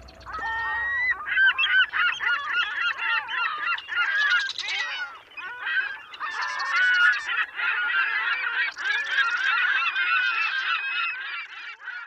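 A flock of birds calling all at once: many short, overlapping squawking calls that bend up and down in pitch, broken by a few harsher, buzzy calls.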